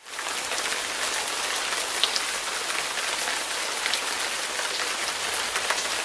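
Steady rain-like hiss with scattered faint ticks and crackles, starting abruptly at the outset and holding an even level.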